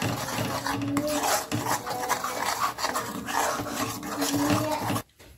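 Steel ladle stirring and scraping thick masala paste around a kadai, in quick repeated strokes, until it stops near the end.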